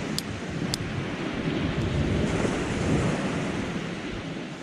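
Wind buffeting the microphone over the steady wash of sea surf, rising and falling in gusts. Two brief high clicks come within the first second.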